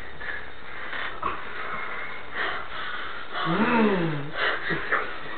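A person's breathy huffs and puffs, with a short pitched groan that rises and falls about three and a half seconds in.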